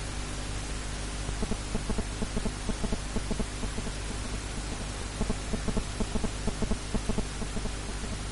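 Steady static hiss with a low hum from a faulty broadcast audio feed, twice broken by a couple of seconds of rapid, regular low pulses, about four to five a second.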